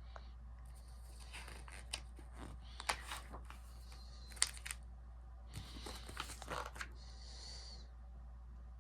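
Pages of a book being turned and handled: paper rustling and crinkling with a few sharp clicks, over a low steady hum.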